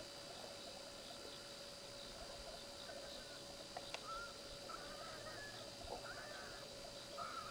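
Faint steady chirring of night insects, with a run of short warbling animal calls from about three seconds in.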